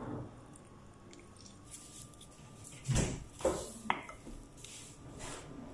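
A wooden spoon tossing a chopped salad in a glass bowl: a knock and two sharp clinks against the glass about three seconds in, then softer stirring and rustling of the leaves.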